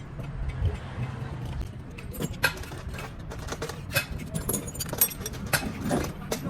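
Sharp metallic clinks and taps, a dozen or so, irregular, starting about two seconds in, over a low steady hum: metal tools and engine parts being handled.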